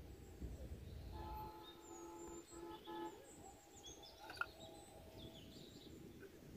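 Quiet open-air ambience with birds chirping faintly. A faint held tone sounds for about two seconds, starting about a second in and breaking off twice. One sharp click comes a little after four seconds, as a plastic bottle is picked up.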